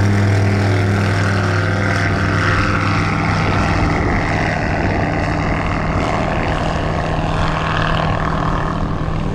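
ICON A5 amphibious plane's propeller engine running as the plane taxis across the water: a steady engine drone, with a lower steady hum that fades out about three and a half seconds in.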